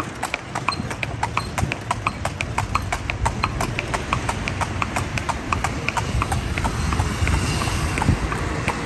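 Horse's hooves clip-clopping on a paved street as it pulls a carriage, a quick even beat of about four to five clicks a second over a low rumble.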